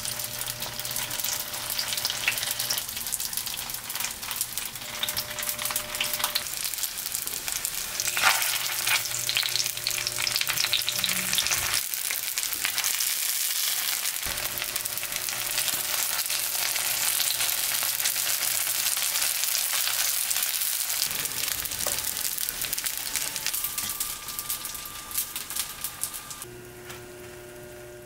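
Gimmari (glass-noodle rolls wrapped in rice paper and seaweed) frying in oil in a cast-iron skillet: a dense, steady sizzle and crackle that dies down near the end.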